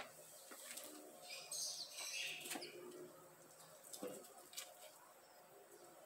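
Faint rustling and scraping of hands pressing down loose soil, with birds chirping in the background.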